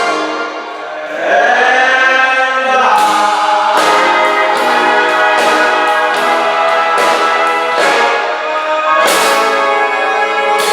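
A swing big band playing live: the brass section plays chords over drums, and from about three seconds in it moves to a run of short, punchy hits with cymbal crashes.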